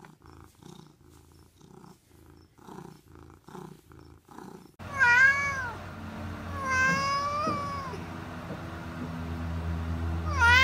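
A cat purring softly while being scratched under the chin, a pulsing about twice a second. Then a white long-haired cat meowing several times, with one long, wavering meow in the middle and another meow near the end, over a steady low hum.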